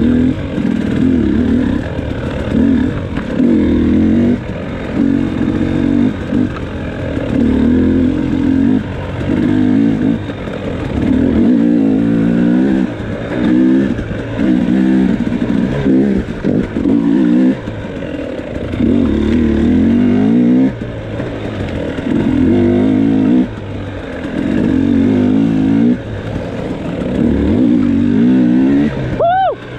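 A 2018 KTM 300XC's 300 cc two-stroke single, with stock pipe and an FMF Turbine Core silencer, revving in short bursts as the throttle is opened and chopped again about every second or so through tight trail riding.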